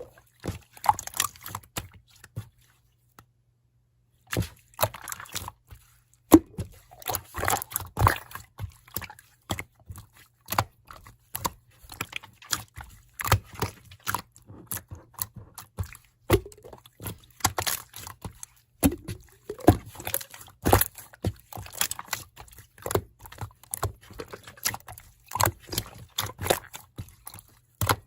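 Slime being squished and worked by hand, making irregular wet pops and crackling clicks, with a short pause a couple of seconds in.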